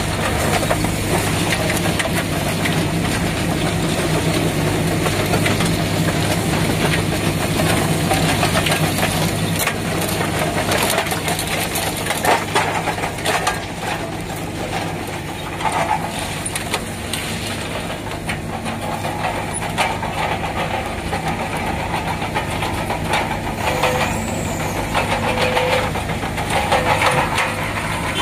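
Rail excavator's diesel engine running steadily under load while its ballast undercutter chain cuts through the track ballast, with irregular clatter and knocks from the stones.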